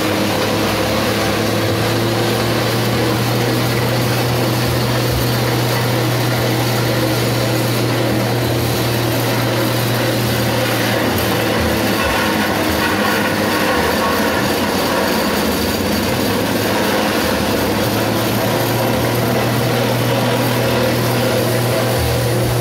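Livestock-feed chopper (forage shredder) running steadily, a continuous low hum under a loud whirring noise, as green fodder stalks are fed in and shredded.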